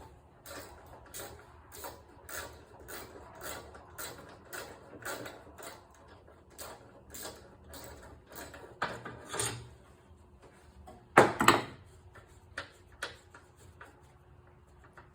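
Ratchet wrench clicking as it loosens a mower fuel-tank bolt, a regular run of clicks about three a second, with a louder metallic clatter about eleven seconds in.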